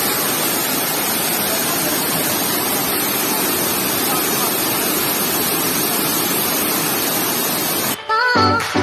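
Waterfall: a steady, even rush of falling water that does not rise or fall. It cuts off abruptly about eight seconds in, when music starts.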